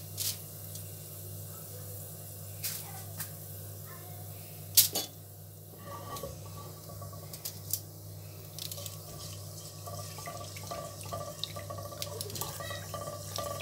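Fenugreek seeds crackling and spattering in hot oil for a tempering, the crackle getting busier after about six seconds. One loud sharp clink comes about five seconds in, over a steady low hum.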